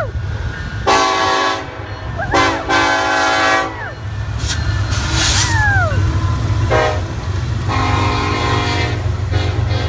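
Diesel train passing with a steady low engine rumble while its air horn sounds several held chord blasts: a shorter one about a second in, a longer one near three seconds, and another long one near the end.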